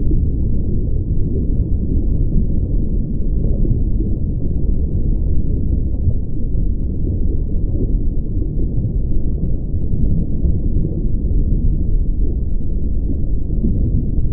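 A steady low rumble with no distinct tones or beats, running without a break.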